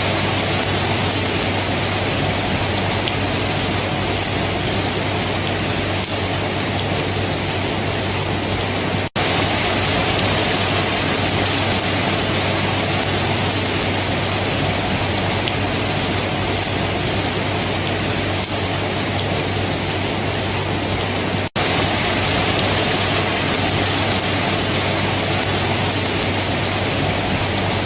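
Steady, dense rainfall, an even hiss of rain falling on surfaces. The sound cuts out for an instant twice, about a third of the way in and again about three quarters in, as if at loop joins.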